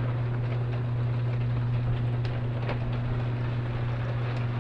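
A machine's steady low hum, with a few faint ticks over it.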